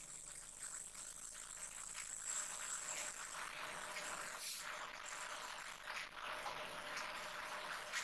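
Faint plastic handling clicks and scrapes as the cover of the Epson L1455's ink cartridge carriage is pressed and snapped into place by hand, with one slightly sharper click about halfway through.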